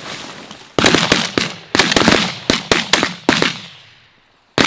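Several shotguns firing a rapid volley at decoying ducks: about a dozen shots in quick succession over roughly three seconds, then one more shot near the end.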